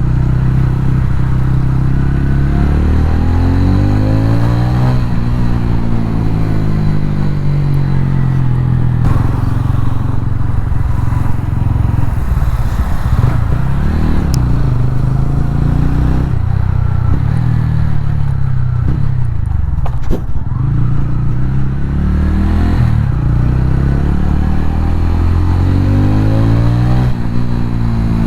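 TVS Ronin 225's single-cylinder engine running while the motorcycle is ridden, its pitch rising and falling several times as the throttle opens and closes and gears change.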